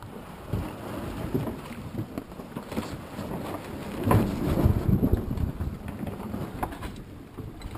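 Wind noise on a GoPro microphone aboard a sailing yacht under way, over the wash of the sea; it gusts louder about four to five and a half seconds in.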